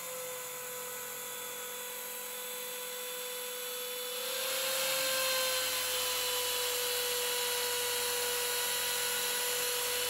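Corded electric drill with a sanding drum, running steadily with a held whine while the drum sands the edge of a plywood sink cutout. The sanding hiss gets louder about four seconds in.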